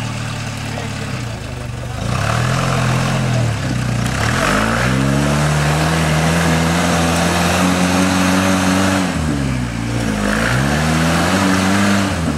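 Off-road vehicle engine revved hard in three surges. The first comes about two seconds in and is brief, the second is held high for several seconds, and the third comes near the end. The pitch climbs and drops back each time.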